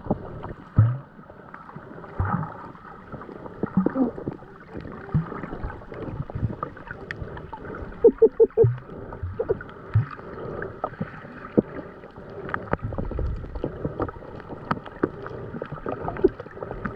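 Muffled water sloshing and gurgling around the camera at the sea surface, with scattered knocks and clicks throughout and a few short pitched blips about eight seconds in.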